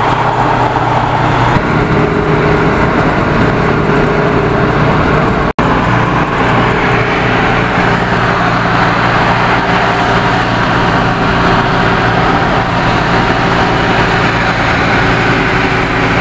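Steady road and engine noise of cars cruising at highway speed, heard from inside a car, with a constant low engine drone. The sound drops out for an instant about five and a half seconds in.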